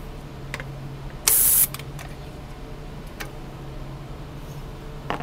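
A short, sharp blast of canned air hissing into the thermocouple welder's cavity for under half a second, about a second in, to flush it out. It is set among a few light clicks of handling over a steady low hum.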